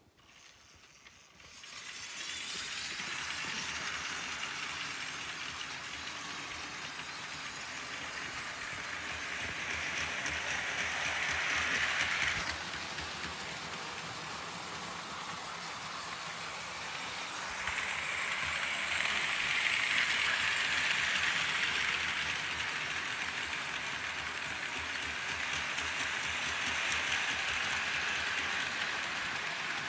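Märklin HO-scale model freight train, a BR 53 articulated steam locomotive pulling a long string of metal ore and hopper cars, running on Märklin M-track: a steady clattering noise of wheels and motor that starts about a second and a half in and grows louder twice along the way.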